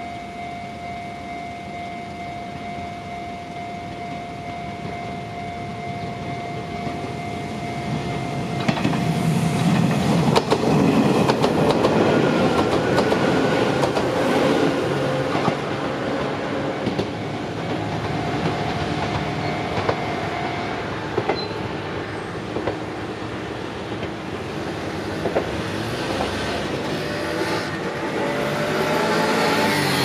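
Railway level-crossing warning alarm ringing while an Izuhakone Railway Sunzu Line electric train approaches and passes, its wheels rumbling and clacking over the rail joints. The alarm stops about two-thirds of the way through as the train clears the crossing, and the wheel noise carries on.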